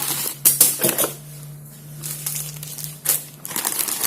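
A parcel being opened and its contents handled: rustling packaging with sharp clicks and knocks about half a second in and again about three seconds in, over a faint steady hum.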